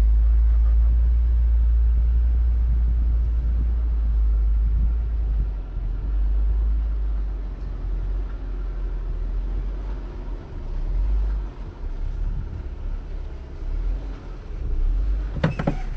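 Jeep Wrangler Rubicon running, a deep rumble that is steady for the first several seconds and then rises and falls unevenly.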